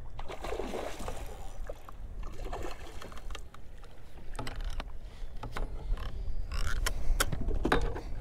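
Water sloshing against a fishing kayak's hull over a steady low rumble, with scattered sharp knocks and clicks from handling a spinning rod and reel, loudest near the end.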